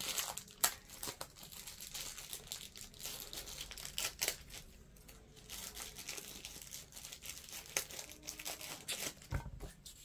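Thin clear plastic packaging bag crinkling and rustling as hands open it and take out small printed kit pieces, in irregular crackles with a few sharper ones.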